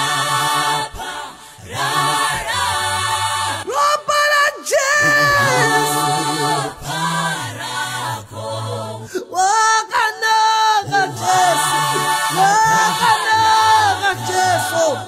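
A choir singing a gospel song in Shona, several voices in harmony, in held phrases with short breaks between them.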